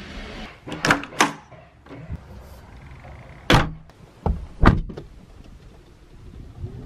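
A run of short, sharp clicks and thunks: a hard-shell suitcase's telescopic handle being worked, then a car door being pulled shut, with the loudest thunk a little before five seconds in.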